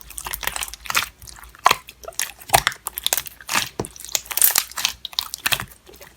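Slime being squeezed and poked by hand, giving irregular crunchy crackles and clicks.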